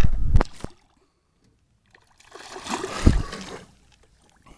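A few quick knocks on the aluminum boat at the start, then about a second of water splashing beside the hull, about two seconds in, as a hooked fish is worked toward the landing net.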